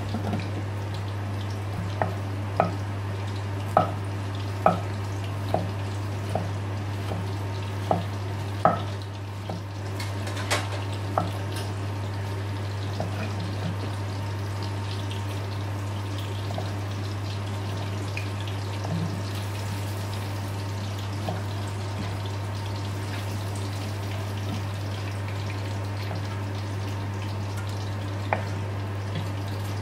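Kitchen knife slicing tomatoes on a wooden chopping board: sharp knocks of the blade against the board, a run of about a dozen in the first ten seconds, then only a few scattered ones. A steady low hum runs underneath.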